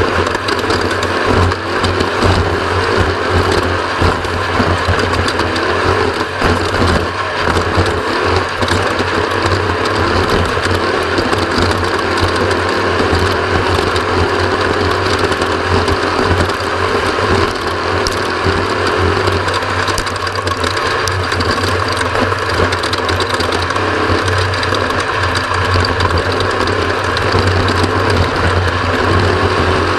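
Mountain bike ridden over a rough trail: a continuous fast rattling and clattering of the bike, with a steady rushing noise.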